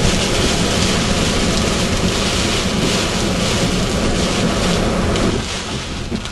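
Heavy rain and wet-road noise of a car driving through a downpour, heard from inside the car: a steady rushing hiss of rain and tyres on the flooded road that gets quieter about five seconds in.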